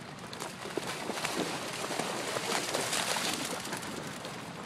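Water splashing and sloshing as dogs run through a large, shallow rain puddle, growing louder about a second in and easing off near the end.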